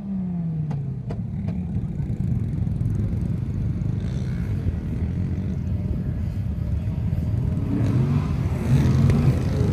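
Pickup truck engine running and revving on sand: its pitch drops in the first second, then it builds and grows louder in the last couple of seconds as the truck pulls off to climb the dune.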